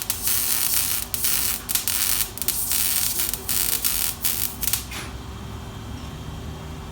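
Power cutting tool cutting through the BMW E60 M5's exhaust pipe for a muffler delete: a harsh, hissing rasp broken by a few short pauses, which stops about five seconds in.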